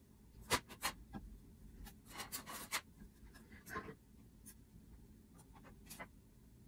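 Hands handling and folding knit fabric to pin a hem: faint rubbing and rustling of cloth, broken by several small sharp clicks and taps, with a cluster of them about two to three seconds in.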